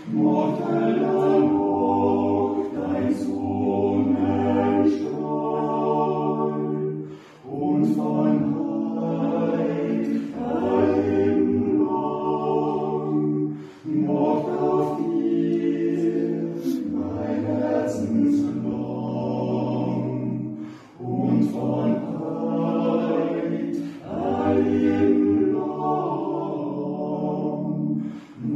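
Male vocal quartet singing a cappella in harmony, a baptism song in Austrian German dialect. The singing comes in long phrases, with a short breath gap roughly every seven seconds.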